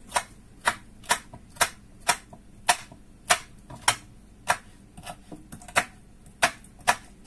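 Kitchen knife chopping through fruit onto a wooden cutting board: a steady run of sharp knocks, about two a second.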